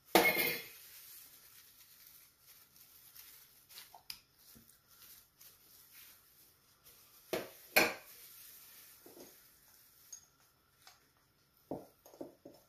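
Kitchen utensils clinking and knocking against a glass baking dish: a loud clatter at the start, two sharp knocks about seven and a half seconds in, and a few lighter taps near the end.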